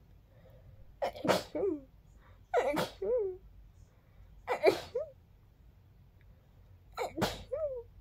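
A person sneezing four times, a few seconds apart. Each sneeze is a sharp burst followed by a short, fairly high-pitched vocal sound that rises and falls, which the sneezer finds girlier than expected.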